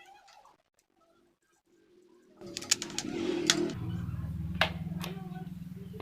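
Table fan's electric motor starting a low, steady hum about two and a half seconds in, settling to a deeper hum a second later, with a few sharp clicks over it.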